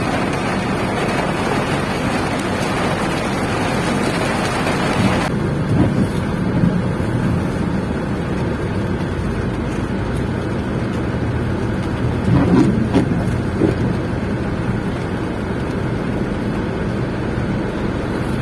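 Steady noise inside a car cabin in the rain: a low, even hum, with a hiss above it that cuts off abruptly about five seconds in.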